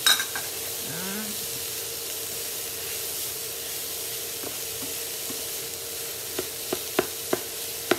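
Cauliflower rice sizzling in a hot frying pan while a wooden spatula stirs and turns it, over a faint steady hum. A sharp knock sounds at the very start, and from about six seconds in the spatula knocks against the pan several times, about three a second.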